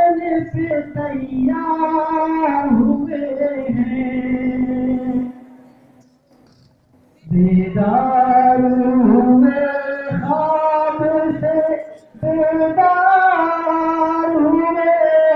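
A tarana (Urdu song) sung in long, held phrases. The singing breaks off for about two seconds midway, then resumes.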